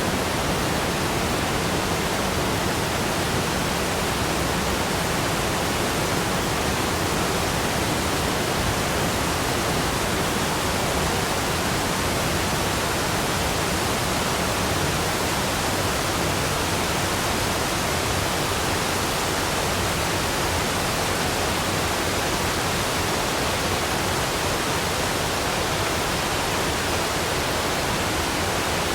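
Waterfall rushing: a steady, unbroken roar of falling water, even and unchanging throughout.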